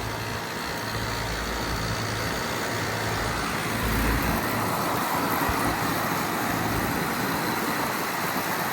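Outdoor heat pump unit running in heat mode: a steady whoosh of the condenser fan over the low hum of its scroll compressor.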